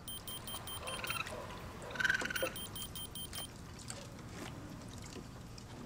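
Raccoons rummaging in a plastic wading pool of water and toys: splashing and plastic knocking and rattling. Runs of rapid electronic beeps near the start and about two and a half seconds in, and a short squeak about two seconds in.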